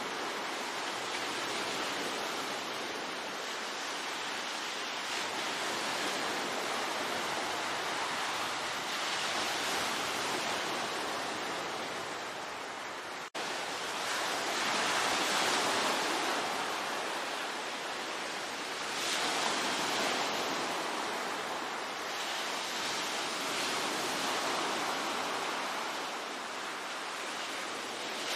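Sea waves breaking and washing on the shore, a continuous surf that swells and eases every few seconds. It cuts out for an instant about halfway through, then comes straight back.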